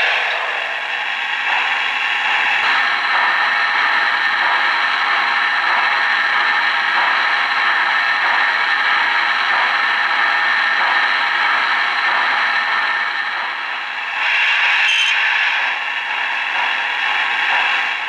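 O-gauge model train running on three-rail track: a steady mechanical clatter of wheels and motor, swelling briefly near the end.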